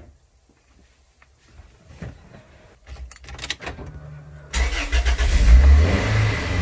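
Toyota MR2 Spyder's 1.8-litre four-cylinder engine starting about four and a half seconds in and running, with a brief rise in revs, after a few light clicks and knocks.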